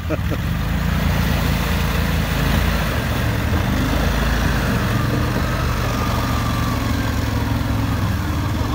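Tracked Argo amphibious vehicle's engine running steadily at low revs as it churns through a deep, muddy clay hole, with water and mud sloshing around its tracks.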